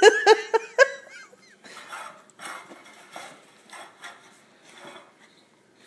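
A husky-type dog makes a few short whining vocal sounds in the first second. After that comes an irregular rattle and scrape of a metal muffin tin and tennis balls as the dog works at the puzzle toy with its nose.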